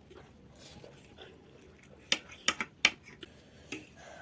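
Chopsticks clicking against a noodle bowl, a handful of sharp clicks in quick succession starting about halfway through.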